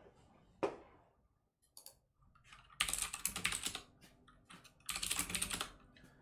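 Typing on a computer keyboard: two quick bursts of rapid keystrokes, each about a second long, a couple of seconds apart, after a single sharp knock about half a second in.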